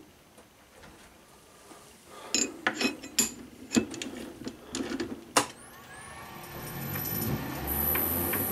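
Metal clicks and knocks as a brass bar is fitted into a lathe's three-jaw chuck and clamped. From a little past halfway, the lathe's motor starts: a whine rises in pitch as it spins up, and a steady running hum builds under it.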